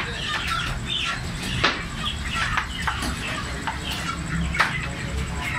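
Butchers' knives cutting chicken on wooden chopping blocks: irregular sharp knocks and scrapes, with two louder knocks, one about a second and a half in and one near the end.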